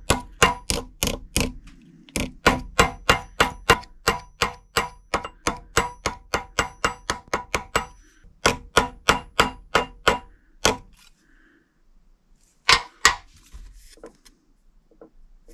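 Light hammer taps planishing the rippled edge of a thin embossed aluminium badge on a steel railway-tie anvil: quick metallic strikes with a short ring, about three to four a second, in runs with brief pauses. Two last single taps come near the end.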